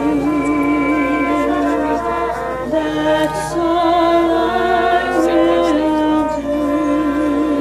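High school marching band playing a slow passage: a wavering, vibrato melody line over held chords.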